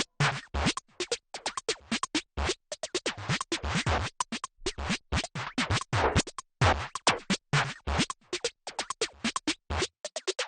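Background electronic music made of rapid, choppy scratch-like stutters over low bass hits. Near the end the bass drops out, leaving only the high end.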